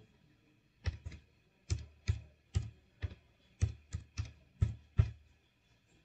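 Computer keyboard typing, slow and uneven: about eleven separate keystrokes, starting about a second in, each a sharp click with a dull thump.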